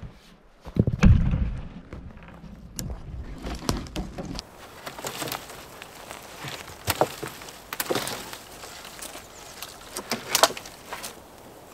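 A wooden pole being handled and carried, with a heavy thump about a second in. Then intermittent rustling, sharp cracks of dry spruce branches and footsteps on the forest floor.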